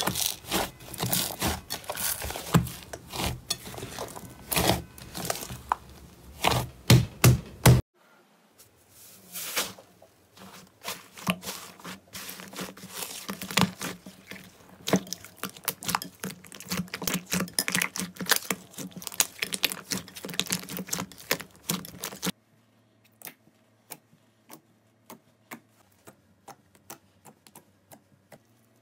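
Slime being squeezed and kneaded by hand, with dense crackling and clicking. Abrupt cuts at about 8 s and 22 s change it, first to softer continuous crackling as another slime is kneaded, then to sparse single pops as a finger pokes into glossy slime.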